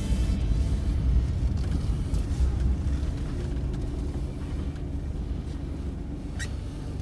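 Car engine and road noise heard from inside the cabin as the car rolls slowly over wet asphalt, a steady low rumble that grows quieter toward the end. A single sharp click sounds near the end.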